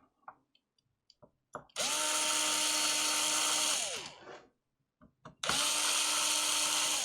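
Small electric screwdriver spinning up, running at a steady pitch for about two seconds and winding down, twice, with a few light clicks between the runs, as it drives screws in the console's casing.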